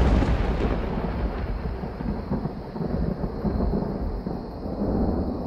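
A deep, rolling rumble, loud at the start and slowly dying away, with a hiss on top that fades out about a second in.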